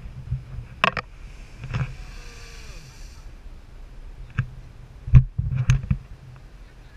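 Wind rumbling on an action camera's microphone, with several sharp knocks and clicks. The loudest knock comes about five seconds in.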